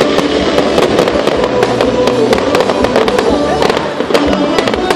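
Aerial fireworks going off in quick succession, many sharp bangs and crackles several times a second, with music playing underneath.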